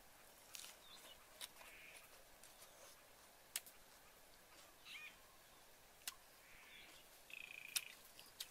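Near-quiet woodland ambience with a few faint, short bird calls and scattered soft clicks.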